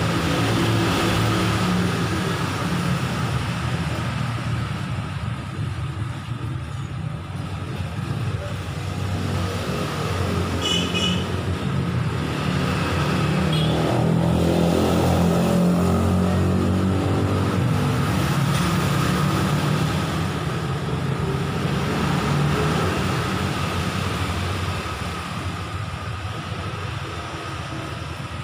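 A motor vehicle's engine running off-camera, its pitch drifting up and down. It grows louder through the middle and fades near the end. A couple of brief high chirps come about a third of the way in.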